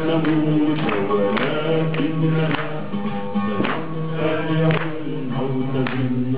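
Oud played in an instrumental passage: plucked strokes with a strong accent a little under twice a second, over held low notes.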